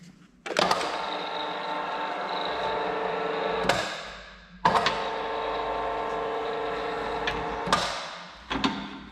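LIMA PE-1 pipe expander running twice, about three seconds each time, as it expands the end of a metal downpipe on its mandrel. Each run starts with a sharp click and holds a steady machine hum with several fixed tones.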